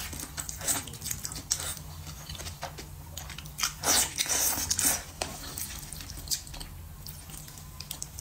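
Close-up eating sounds: a woman biting and chewing soft dumplings in chili oil, many short clicks and smacks of the mouth, busiest around the middle, over a faint steady low hum.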